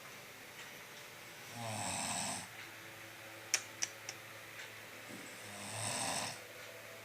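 Snoring of a sleeping person: two snores about a second long each, about four seconds apart, with three sharp clicks between them.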